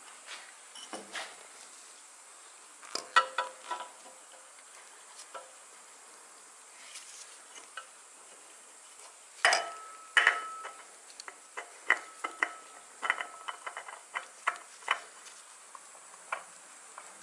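Scattered clinks, taps and knocks of hand-handling as a new spin-on oil filter is fitted under a motorcycle engine over a plastic drain pan. The loudest knocks come about three seconds in and around ten seconds in, one with a brief metallic ring.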